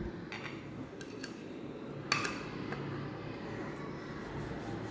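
Kitchen knife sawing down through a loaf cake's hard, set icing-sugar glaze, a faint rasping scrape, with a sharp clink of the blade against the china plate about two seconds in.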